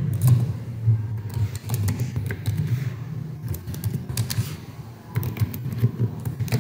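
Typing on a computer keyboard: irregular key clicks entering an email address, over a steady low hum.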